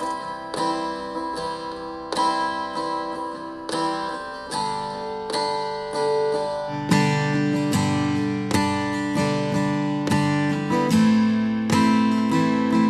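Acoustic guitar playing a song's introduction, picked notes at an even pace, growing fuller with deeper notes about seven seconds in.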